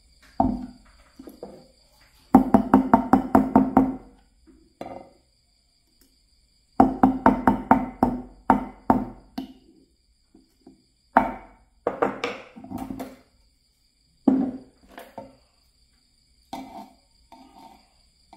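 Rapid knocking on a wooden block in irregular bursts of several quick strikes each, separated by silent gaps, each strike with a short hollow ring.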